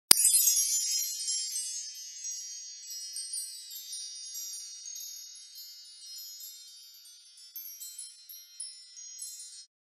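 Chime sound effect: high, tinkling bell-like tones that start suddenly and ring on, with new notes coming in as the whole slowly fades, then stop just before the end.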